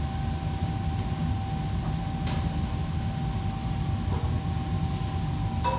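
Steady low mechanical rumble with a constant thin whine above it, the background running of a commercial kitchen, with two faint clicks, about two seconds in and near the end.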